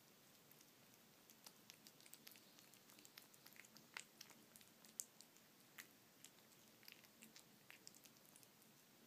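Cat eating soft wet cat food: faint, irregular wet clicks and smacks of chewing and licking, the sharpest about four and five seconds in.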